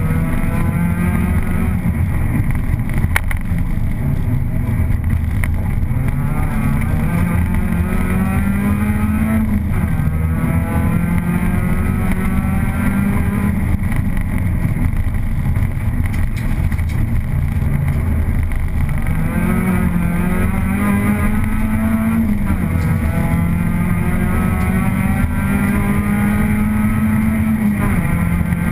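Opel Astra GSi's engine heard from inside the cabin, driven hard: its pitch climbs repeatedly and drops back between pulls, over a steady rushing noise.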